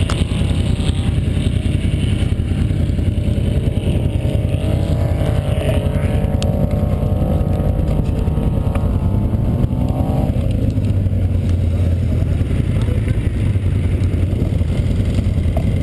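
ATV engine running under throttle while riding over sand, with heavy wind noise on the microphone. The engine note wavers and climbs, then drops back about ten seconds in.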